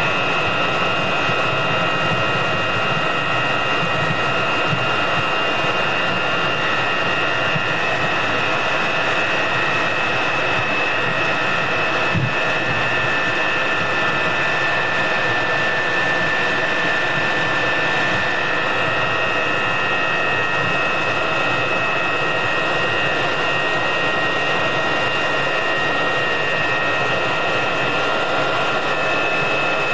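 Jet engines of taxiing Mirage III fighters (SNECMA Atar 09C turbojets) running at ground idle: a steady high whine of several held tones over a low rumble.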